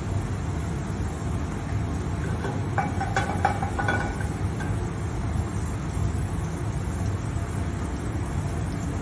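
Steady low rushing of a stovetop burner heating a sauté pan, with a few short metallic clinks of pan or utensil between about three and four seconds in.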